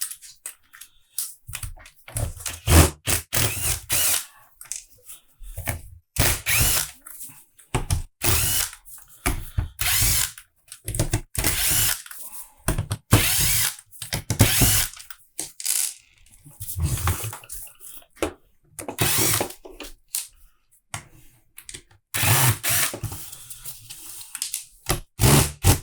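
Cordless power driver running in repeated short bursts, backing out the housing screws of a cordless impact wrench, with a pause between each screw.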